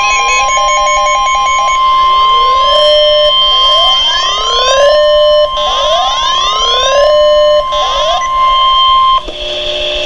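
Weather alert radio sounding a NOAA Weather Radio alert: the steady 1050 Hz warning alarm tone, with a rising siren-like sweep repeating over it about every second and a half. The tone cuts off about nine seconds in, ahead of a Winter Storm Warning broadcast.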